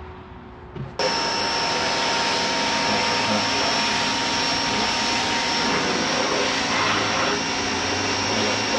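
A vacuum cleaner starts abruptly about a second in and runs steadily: a loud rushing of air with a high, steady whine.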